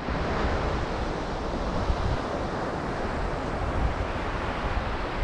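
Steady wash of ocean surf on a sandy beach, with wind buffeting the microphone in an uneven low rumble.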